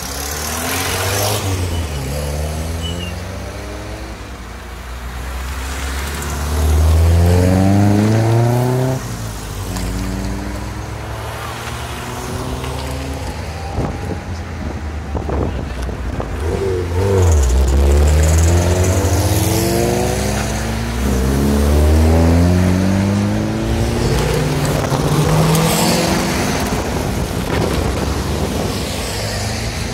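A line of cars driving past one after another, each engine rising in pitch as it accelerates away, several times over. Among them is a first-generation Ford Fiesta near the end.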